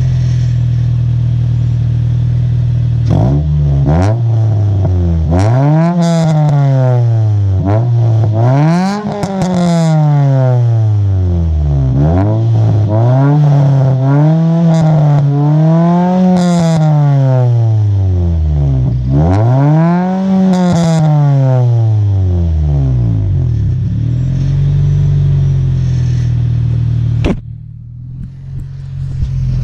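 A car's exhaust, heard from behind at its large single tip, idling and then revved over and over, each rev climbing and falling back to idle, about seven or eight times. It settles back to a steady idle, and near the end a knock is followed by a sudden drop in loudness.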